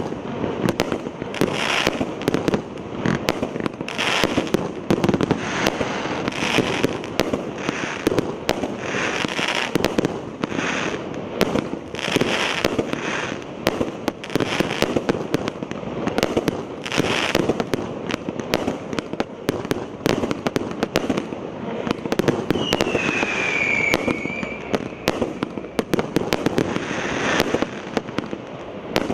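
1-inch, 250-shot consumer firework cake firing a continuous rapid barrage: launch thumps and aerial bursts every fraction of a second, dense with sharp cracks. A single falling whistle sounds a little over twenty seconds in.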